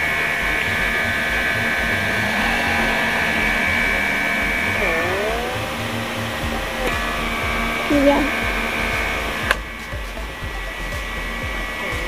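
CKEYIN handheld pore vacuum (blackhead remover) whining steadily as its suction nozzle is worked over the nose. Its pitch dips and recovers about five seconds in and again at the end, and there is one sharp click about nine and a half seconds in.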